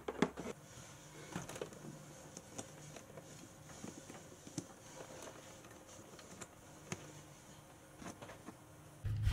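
Faint scattered clicks and rustles of hands handling wires and crimp connectors in a boat's electrical console. A steady low hum starts near the end.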